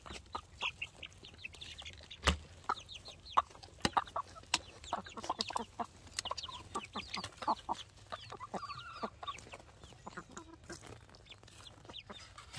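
Hens clucking in many short, quick calls, with chicks peeping among them. A few sharp clicks in the first half, from the plastic pen panels being handled.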